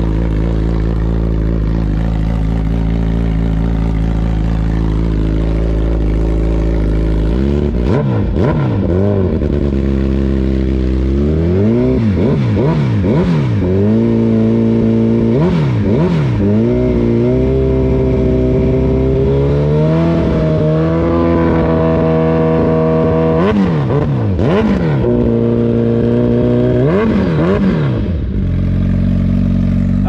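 A 2022 Suzuki Hayabusa's 1340 cc inline-four running through a Brock's Performance Alien Head aftermarket exhaust. It idles steadily, then the throttle is blipped repeatedly, with a few revs held higher, before it drops back to idle near the end.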